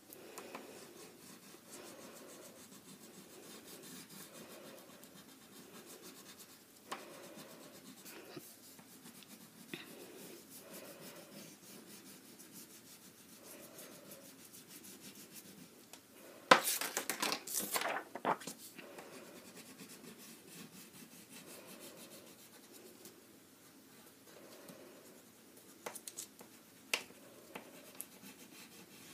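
Black wax crayon rubbing on paper in repeated short strokes as a solid area is filled in. About halfway through there is a louder burst of scraping and knocks lasting about two seconds, and a few light taps come near the end.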